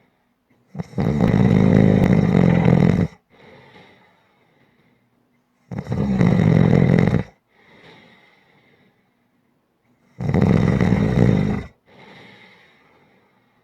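Loud snoring: three long snores about four and a half seconds apart, each followed by a quieter breath that fades away.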